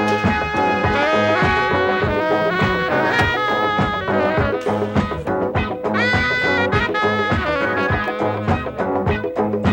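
Soundtrack music: a swing-style brass band, with horn lines over a steady drum beat.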